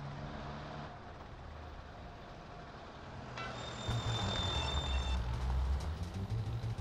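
Diesel engine of a double-decker bus running at a steady low rumble, then growing much louder about four seconds in as the bus pulls away. A high ringing tone sounds over it shortly before that and fades after about two seconds.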